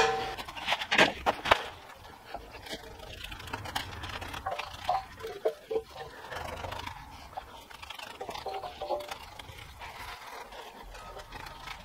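A hammer knocks on a painted steel part several times in the first second and a half, chipping off leftover weld spatter. Quieter scraping and handling sounds on the metal follow.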